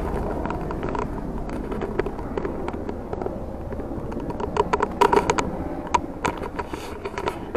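Helicopter flying nearby, a steady low drone. A cluster of sharp clicks and scrapes comes about five seconds in.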